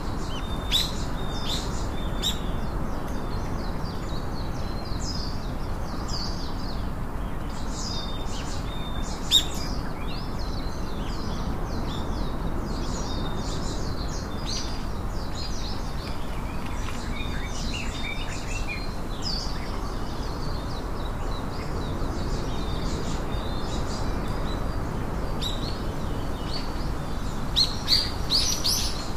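Small birds chirping and calling: many short, high chirps scattered throughout, a few louder ones near the end, over a steady low background hiss.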